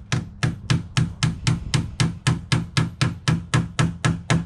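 A wooden-handled hammer driving a nail into a timber batten with quick, evenly spaced blows, about five a second, stopping near the end.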